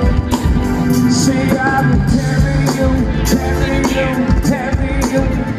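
A live band playing amplified music over a festival PA, with a steady drumbeat, bass and a singing voice, recorded from within the crowd.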